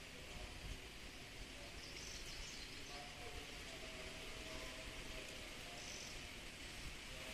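Steady outdoor hum of insects, with a few short high bird chirps about two seconds in and again near six seconds.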